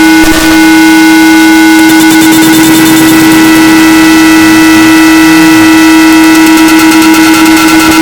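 Harsh noise music: a loud wall of distorted electronic noise over a steady low drone, with several thin steady high tones and fast flickering stutter in the upper range.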